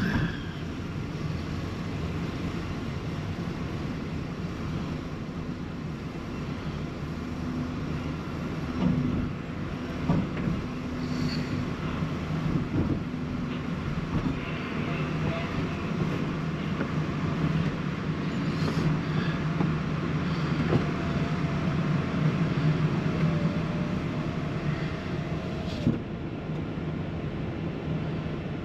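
Car driven slowly onto a ferry's vehicle deck, heard from inside the cabin: a steady low engine and tyre hum with a few short knocks from the wheels.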